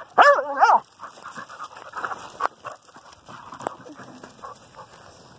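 A dog whining, a few short cries rising and falling in pitch in the first second, then quieter, irregular sounds.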